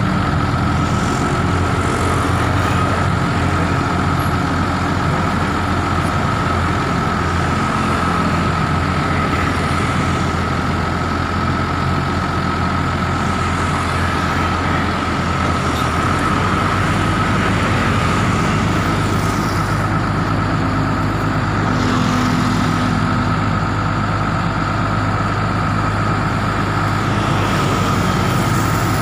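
Hino FG 235 Ti crane truck's diesel engine running to power its HMF 1800 knuckle-boom crane as the boom is extended, with a steady high whine throughout. The engine note shifts about halfway through.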